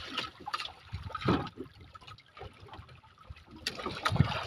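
Seawater sloshing and trickling against the hull of a small wooden outrigger fishing boat, uneven and splashy, with two light knocks near the end.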